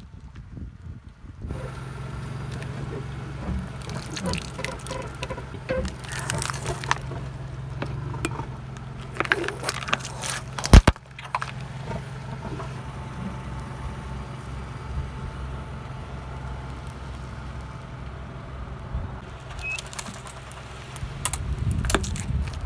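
A car engine runs with a steady low hum as a tyre rolls slowly over soft, liquid-filled objects, which crackle, pop and squelch as they burst and liquid squirts out. There is one sharp loud bang a little past the middle.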